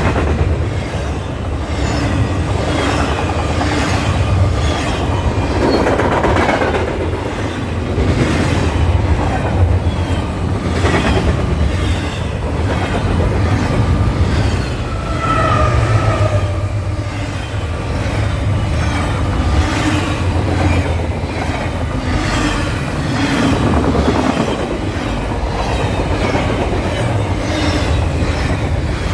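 A train running on rails: a steady low rumble with an even clatter of wheels, and a brief high squeal about halfway through.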